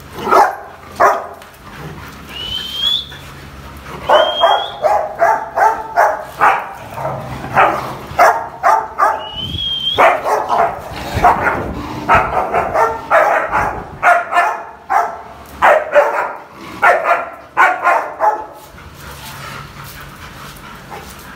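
Dogs (a Rottweiler, a German Shepherd and a Labrador) barking in quick runs while play-fighting, with three short high rising whines in the first half. The barking mostly stops near the end.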